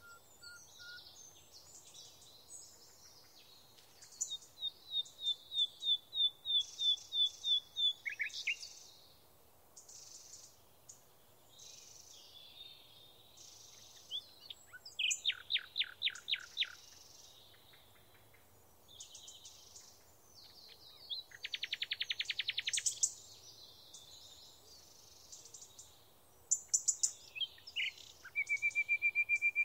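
Birds singing: every several seconds a phrase of quickly repeated high notes or a fast trill, with fainter chirps between.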